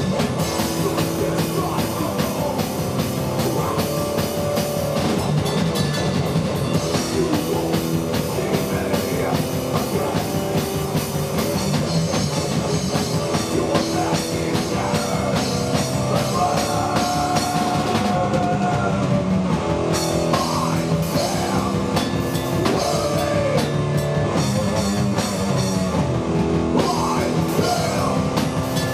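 Live rock band playing: electric guitar over a drum kit, loud and continuous, with a held guitar note partway through.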